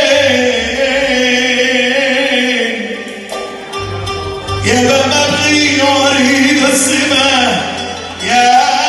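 Male singer performing an Arabic tarab song live, with long wavering held notes, over electronic keyboard accompaniment with a steady bass; the voice drops back briefly a few seconds in, then comes in again.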